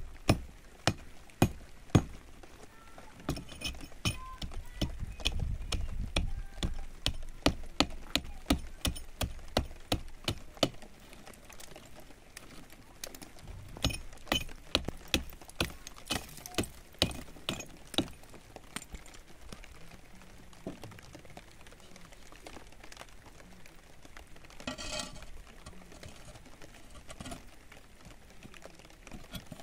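Sharp, irregular taps and clinks of glass and hard tools as a pane is set into a window opening with plaster. They come in quick runs during the first half and turn sparser later.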